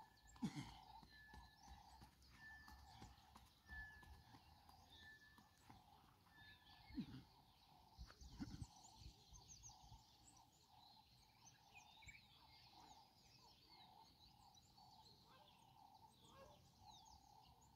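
Faint outdoor ambience of birds chirping, one of them repeating a short, even whistled note about every two-thirds of a second for the first seven seconds, over a steady faint hum. A few soft low thumps stand out, about half a second in and around seven and eight and a half seconds.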